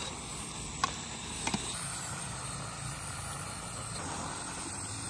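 Steady hiss of a small gas-cylinder burner under a steel karahi of cooking chicken, with a couple of light metal clinks about a second in as a slotted spoon tips chopped tomatoes and chillies from a steel platter into the pan.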